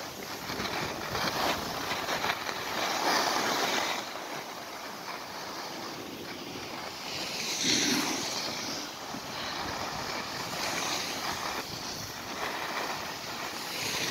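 Skis hissing and scraping over packed snow on a downhill run, with wind rushing over the microphone; the noise swells and fades in waves.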